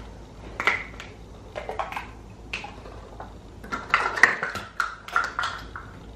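Kitchen utensils and dishes clinking and knocking against a metal pot while cake-mix ingredients are measured in. A few separate knocks come first, then a quick run of ringing clinks in the last couple of seconds.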